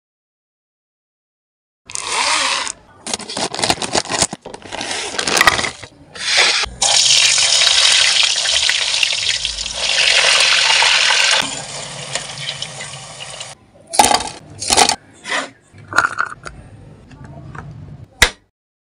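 Potato pieces deep-frying in hot oil: a steady sizzle lasting several seconds in the middle. Before it comes a run of short scrapes and taps, and near the end a few sharp clicks and taps.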